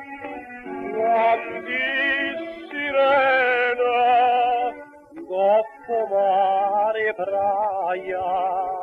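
A song: a singer holds long, wavering notes over an accompaniment, with a short break between phrases about five seconds in.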